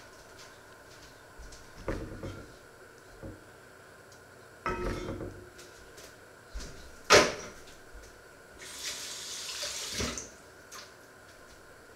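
Kitchen handling sounds: scattered knocks and clatter of a spoon and dishes, the loudest a sharp clink about seven seconds in, then a steady hiss lasting about a second and a half near the end.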